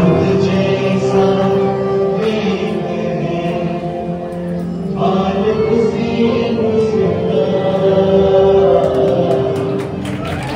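Devotional chant-style music with voices singing long held notes, pausing briefly about five seconds in.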